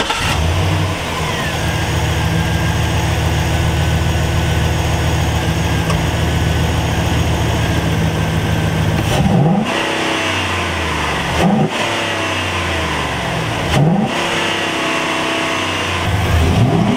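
The 6.0-litre V8 of a 2009 GMC Sierra 2500HD idles steadily, breathing through a newly fitted open-filter cold air intake. From about nine seconds in the throttle is blipped four times, and each time the engine revs up and falls back to idle.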